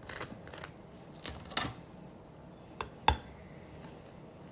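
A handful of light, separate clicks and taps of tableware, such as a knife or spoon against a plate, the loudest about three seconds in.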